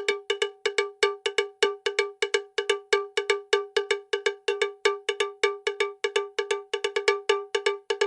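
Background music: a fast rhythmic loop of cowbell-like strikes, about five a second, all on the same pitch.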